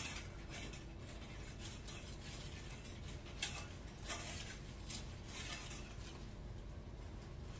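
Rustling and crinkling of artificial pine and glittery decorative picks being pushed into a centrepiece arrangement by hand, with a few light clicks, the clearest about three and a half and four seconds in.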